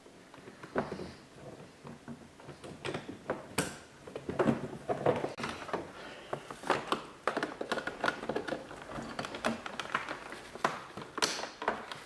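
Irregular clicks, taps and rustling as a 2004 Chrysler Sebring's plastic door trim panel is handled and its wiring harness connectors are pushed back in, with a sharper knock about three and a half seconds in and another near the end.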